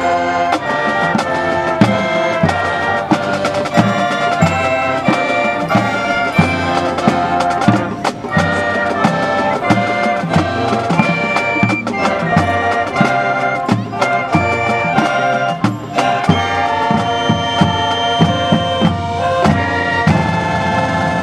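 High school marching band playing: brass and drums together, with the band coming in loud all at once at the start and holding at full volume, the drums beating steadily under sustained brass chords.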